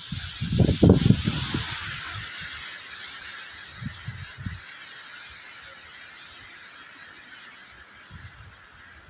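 Heavy rain hissing steadily, with gusts of strong wind buffeting the microphone; the strongest gust comes about a second in, with a smaller one near four seconds.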